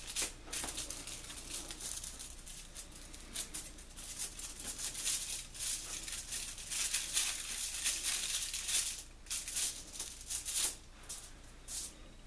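Aluminium foil crinkling and rustling in irregular bursts as hands roll pizza dough on a foil-lined baking sheet.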